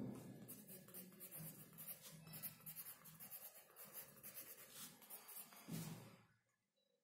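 Graphite pencil writing on sketchbook paper: faint, quick scratchy strokes of hand lettering. A hand brushing across the paper makes a soft rustle at the start and again near the end.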